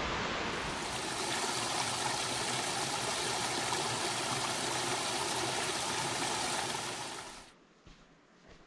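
A small mountain trickle of water running down over rocks: a steady rush of splashing water that fades out near the end.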